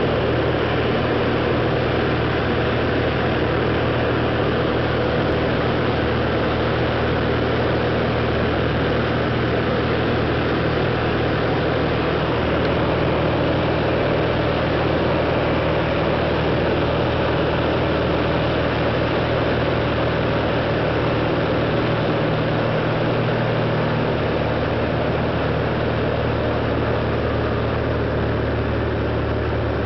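Cabin noise of a Cessna 180 Skywagon in flight: the engine and propeller drone steadily, with a constant rush of wind over the airframe, during a banking approach to land.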